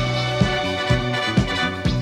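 Instrumental break of a pop song played by a band, with a steady beat of about two strokes a second under held chords.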